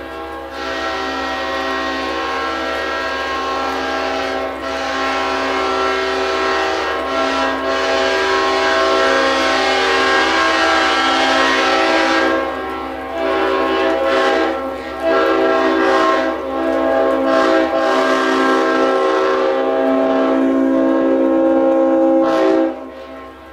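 Leslie RS5TFX five-chime train air horn sounding a loud, steady chord. One long blast lasts about twelve seconds, then come several shorter blasts with brief breaks. The last is held for a few seconds and cuts off sharply near the end.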